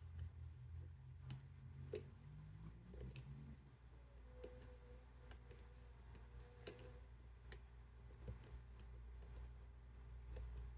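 Faint, irregular clicks of a lock pick and tension wrench working the pins of the EGL7 lock, over a low steady hum.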